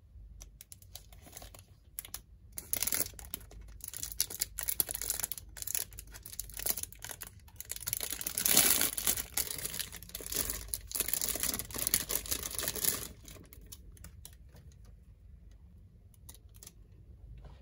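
Crinkling and rustling with many small crackles, busiest through the middle and thinning out near the end.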